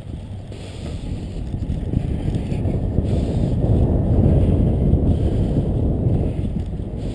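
Wind rushing over the microphone of a bicycle-mounted camera as the bike rolls along, a low rumble that builds about two seconds in and is loudest around the middle.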